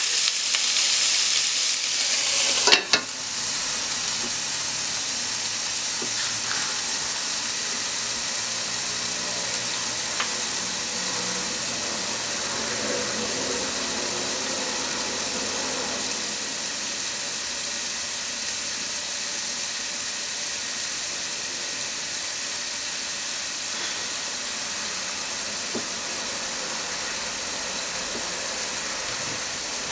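Meat-wrapped potato sticks sizzling in a frying pan. About three seconds in, a glass lid is set on with a sharp clack, and the frying goes on as a quieter, muffled steady sizzle under the lid.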